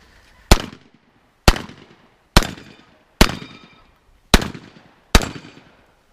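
Six shotgun shots fired in quick succession, roughly one a second, each loud crack trailing off in a short echo.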